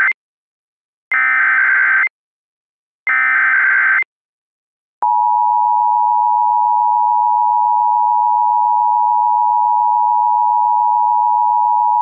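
Emergency Alert System tones. The end of one SAME header data burst and two more bursts about a second apart are followed, about five seconds in, by the steady two-tone EAS attention signal. This sequence encodes and announces an emergency alert, here an extreme wind warning, ahead of the spoken message.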